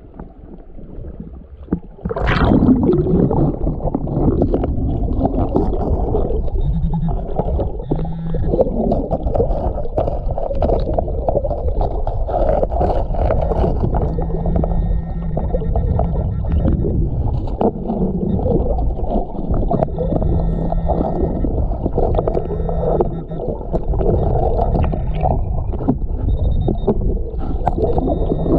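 Camera plunges underwater about two seconds in, followed by the muffled underwater rumble and gurgle of creek water and gravel. Over it, a Garrett waterproof pinpointer gives steady buzzing tones that come and go as it probes the creek bed.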